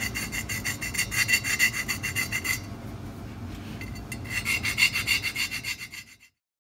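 A small abrasive stone rubbed in quick back-and-forth strokes over the top edge of a Vincent Rapide cylinder barrel's bore, lightly taking off burrs. The strokes pause for about a second and a half in the middle, start again, then stop near the end.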